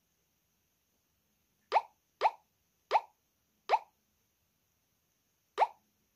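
A phone's key-press tone sounds five times at uneven intervals: each is a short, identical bloop that rises quickly in pitch. This fits the keypad sound of a JiSED A1 fidget-spinner phone as its buttons are pressed through the menu.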